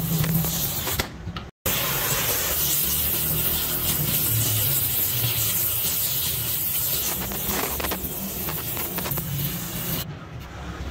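Hose-fed gas torch flame hissing steadily as it heats metal scraps on a gearbox casing. The sound cuts out for a moment about one and a half seconds in, and the high hiss drops away near the end.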